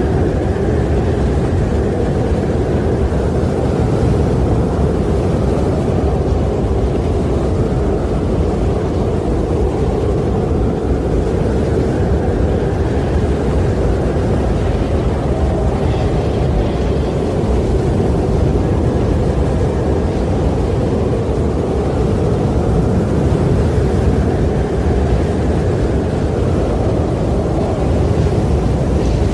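Wind blowing steadily as a deep, low rushing, swelling and easing slowly every few seconds.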